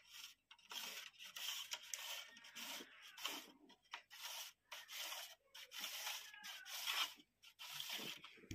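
Plastic rubbing and scraping as an LED batten light's circuit strip is worked back into its plastic end cap: a faint run of short scratchy strokes with brief pauses between them.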